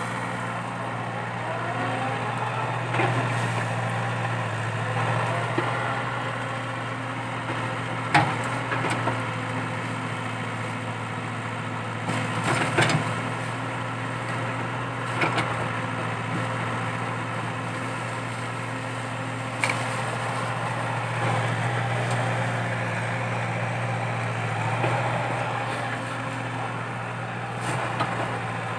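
Komatsu PC80 excavator's diesel engine running steadily while it digs out eucalyptus stumps, with several sharp cracks of wood and roots splitting.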